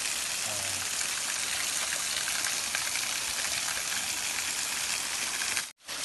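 Steady hiss of a small waterfall pouring down a rock face and splashing onto the stones below. The sound breaks off for an instant near the end.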